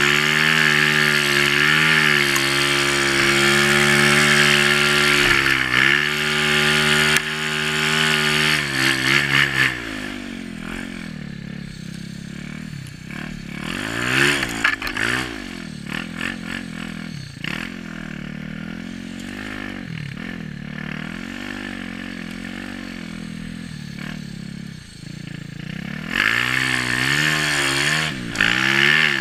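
Yamaha YZ450 snowbike's single-cylinder four-stroke engine running hard. It holds high revs for the first ten seconds, then drops to lower revs that rise and fall with the throttle, with a sharp rev about fourteen seconds in, and is held high again in the last three seconds.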